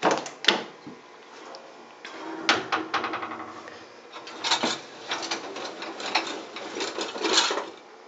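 The latch handle and door of a 1959 KitchenAid KD-12 dishwasher clicking open, then the loaded wire racks sliding out with dishes and silverware rattling and clinking. Two sharp clicks come in the first half second, then bouts of clatter.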